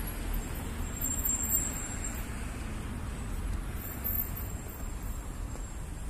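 Steady low rumble of city traffic in the background, an even hum with no distinct events.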